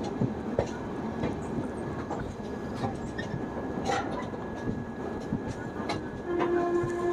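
Indian Railways express passenger coach running on the rails just after pulling out of a station: a steady rumble with irregular wheel clicks over rail joints. About six seconds in, a long steady horn note starts and carries on.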